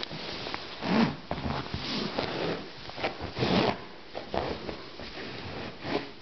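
Close cloth rustling and rubbing against the phone's microphone, denim brushing as the legs shift, in irregular bursts that are loudest about a second in and again around three and a half seconds.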